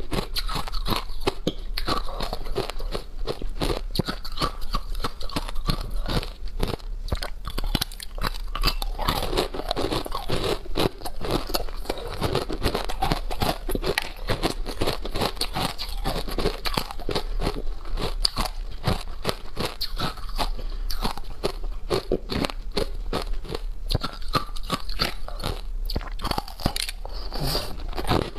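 Hard frozen ice being bitten and chewed close to a clip-on microphone: a dense, continuous run of crisp crunches and crackles as the pieces break up between the teeth.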